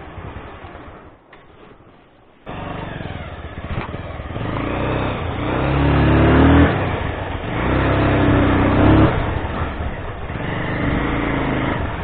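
Motorcycle engine pulling in low gear. After a quiet stretch it comes in suddenly about two and a half seconds in, then revs up and eases off twice, loudest in the middle.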